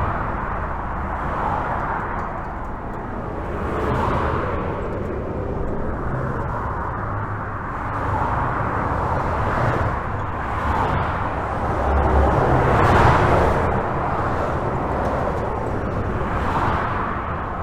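Steady highway traffic heard from under a bridge: a continuous tyre-and-engine rush with a deep rumble, swelling every few seconds as individual vehicles pass.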